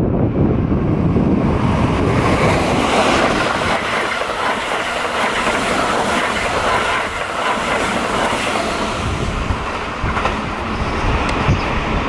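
Keihan 3000-series train passing through the station at speed: the steady running noise of its wheels on the rails as the cars go by close to the microphone.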